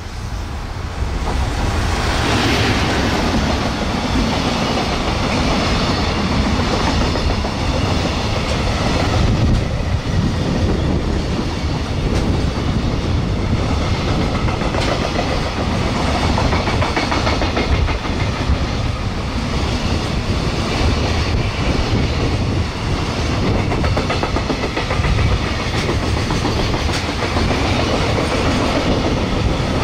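Long container freight train hauled by an EF210 electric locomotive rolling past at about 60 km/h: a loud, steady noise of wagon wheels on the rails that swells about a second in and then holds.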